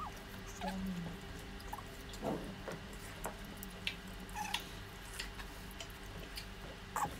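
Close-up eating sounds: short wet smacks, squeaky slurps and small clicks as watermelon is bitten and seafood pieces are sucked, over a steady low hum.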